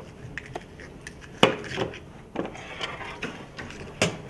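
Kitchen clatter: a few sharp knocks and clicks of metal pans and utensils, the loudest about a second and a half in and another just before the end.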